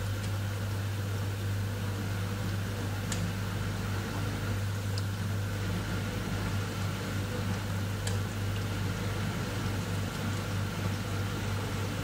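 Miele EurostarSC dishwasher running its prewash: a steady low hum under an even hiss of water, with a few faint ticks.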